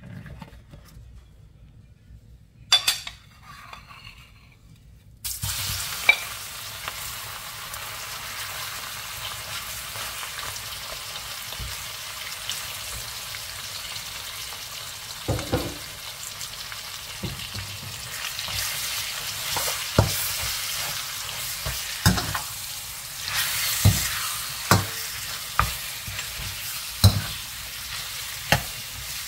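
Pieces of spice-coated lamb frying in oil in a wok. The sizzle starts suddenly about five seconds in and carries on as an even hiss. From the middle on, a metal slotted spatula stirring the meat knocks and scrapes against the wok again and again.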